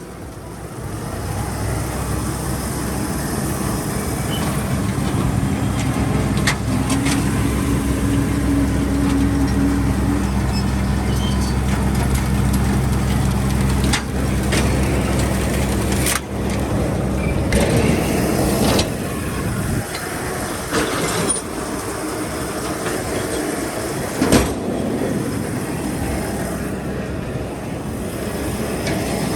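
Tractor engine running steadily under throttle while pulling a round baler, coming up in level about a second in, with occasional sharp knocks from the machinery.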